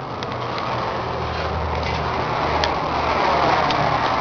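John Deere 7410 tractor's six-cylinder diesel engine idling steadily, with a few light clicks over it.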